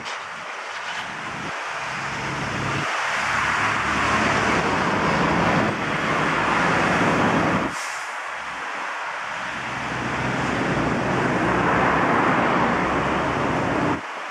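Busy road traffic passing: engines and tyre noise swelling and fading as vehicles go by, with a sudden drop in level about eight seconds in.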